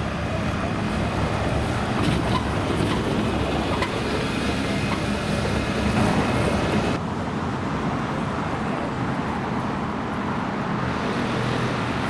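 Iveco city buses driving past on a cobbled street: engine hum and tyre noise over steady street traffic. The sound changes abruptly about seven seconds in, as the recording cuts to another take.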